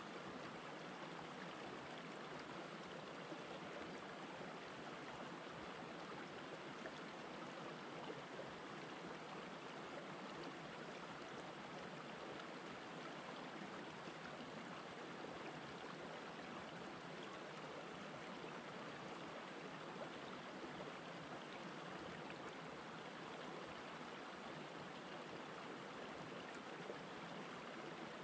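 Shallow rocky stream flowing over stones: a steady, even rush of running water.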